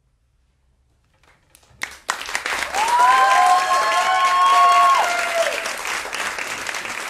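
Audience applause breaks out about two seconds in, after a short silence at the end of the piece. For about three seconds a few long, held voices call out over the clapping.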